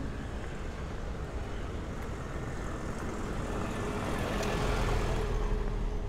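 Road traffic: a motor vehicle going by, its noise building slowly over about five seconds, with a faint steady engine hum in the second half.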